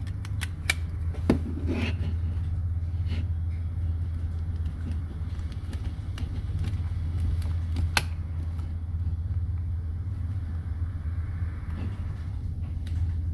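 A steady low background hum, with a few sharp plastic clicks from handling the TV remote, a cluster in the first two seconds and one more about eight seconds in.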